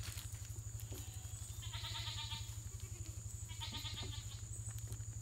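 Goat bleating twice, about two seconds apart, each call short and wavering.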